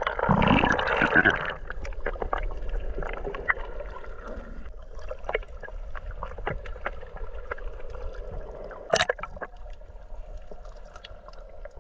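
A microphone plunged underwater: a loud rush of water for about the first second and a half, then a muffled underwater drone with many scattered clicks, one louder click about nine seconds in.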